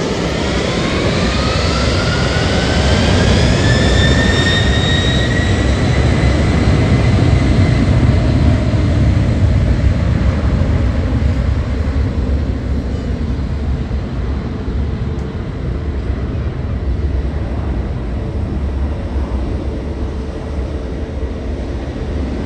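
Jet airliner's engines spooling up: a rising whine over the first few seconds that then holds at one pitch, over a heavy rumble that peaks and slowly fades.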